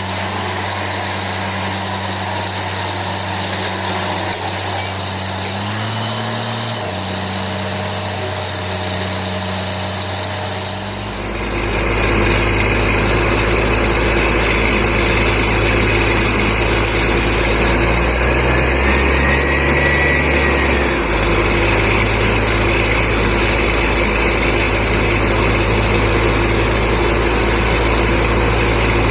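Borewell drilling rig and its air compressor running steadily. About eleven seconds in, the sound grows louder and deeper and stays that way.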